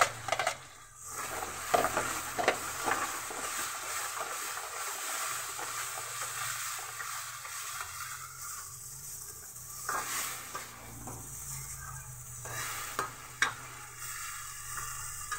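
Tomato purée and onion masala sizzling in hot ghee in a steel kadai while a steel ladle stirs and scrapes it, clinking sharply against the pan a few times. The sizzle eases off for a moment now and then as the wet purée is turned through.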